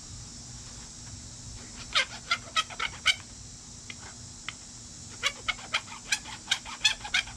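Hand file rasping the rough sprue edge off a freshly poured lead egg sinker in short strokes: a handful about two to three seconds in, then a quicker run of about three strokes a second from about five seconds on.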